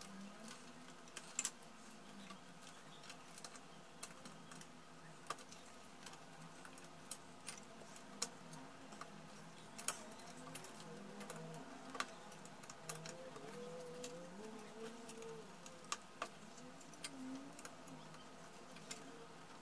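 Faint, irregular clicks and ticks of wire harnesses and plastic cable clips handled by hand inside an opened laser printer's chassis.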